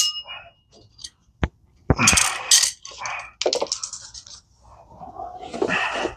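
Small metal objects being handled and moved: a sharp click, a clatter, a quick run of clinks and a scrape.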